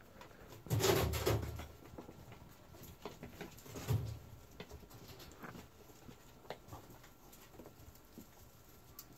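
Young polecat kits scampering and tussling: a loud scuffle about a second in, another short burst around four seconds, then light scratching and pattering of small feet.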